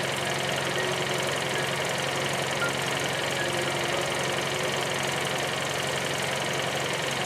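Fiat 500 0.9 TwinAir two-cylinder turbo engine idling steadily.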